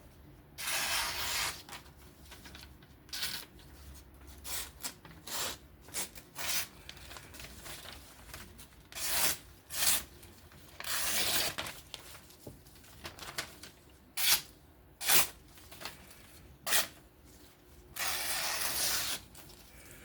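A freshly sharpened folding-knife blade slicing through paper in a series of cuts, testing the edge. There are several longer rasping slices, each about a second, mixed with short, sharp snips.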